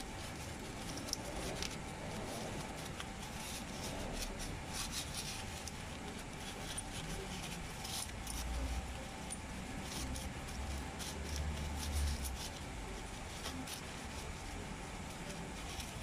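Soft rustling and small scattered clicks of a tissue wiping and handling an electric fan's push-button selector switch, drying it after it was sprayed to free the stuck buttons. A low rumble comes in for a few seconds past the middle.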